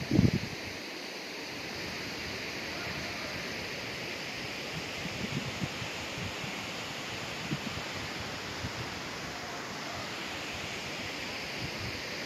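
Steady rushing of a multi-tiered mountain waterfall heard from close by. A low thump on the microphone right at the start and a few softer ones later.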